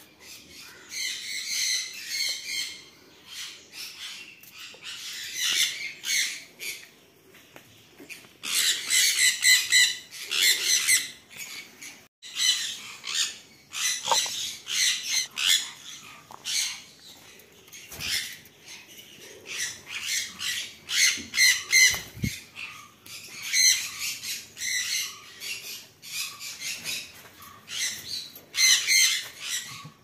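Sun conures calling: repeated bursts of harsh, high-pitched squawks with short pauses between them.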